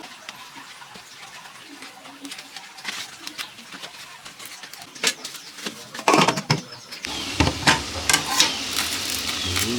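Scattered clicks and clinks of utensils on a plate while eating. About seven seconds in, electronic music with a heavy low beat starts.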